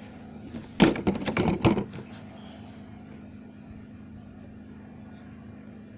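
A quick run of sharp knocks and clatters over about a second, from the fairing and tools being handled, then a steady low hum.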